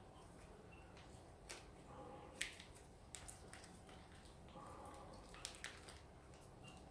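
Faint crinkling and squishing of a plastic bag as thick sauce is squeezed out of it by hand, with a few sharp little clicks of the plastic.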